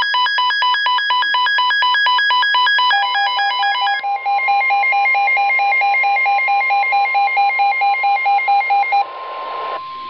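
Two NOAA weather alert radios sounding their electronic alarm beeps at once, rapid repeating multi-tone beeping, joined about three seconds in by the weather broadcast's steady 1050 Hz warning alarm tone. The beeping stops about nine seconds in, leaving the steady tone alone until it cuts off.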